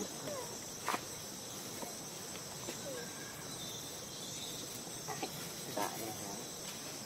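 Forest ambience with insects buzzing steadily, a few faint short calls and a couple of sharp clicks.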